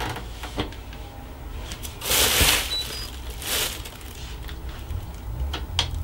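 Clicks from a front-loading washing machine's program dial and buttons being set, with two short faint high beeps about halfway through. Two short bursts of hissing noise come in the middle, over a low steady hum.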